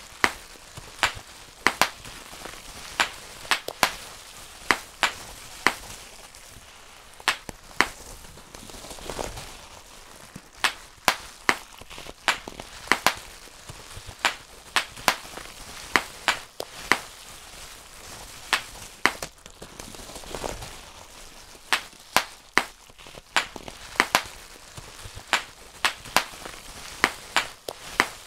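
Bubble wrap bubbles being popped one at a time by hand: sharp, single pops at an uneven pace of about one or two a second, with soft crinkling of the plastic sheet between them.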